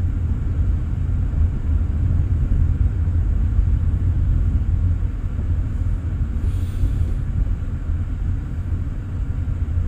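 Steady low rumble of a car's engine and tyres heard from inside the cabin as it rolls along slowly, coasting off the accelerator. A brief faint hiss comes about two-thirds of the way through.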